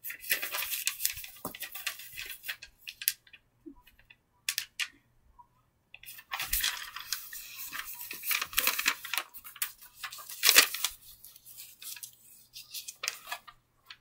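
Rustling and crinkling handling noise, like paper being handled, in two long stretches about a second in and from about six to eleven seconds, with short scattered crackles between.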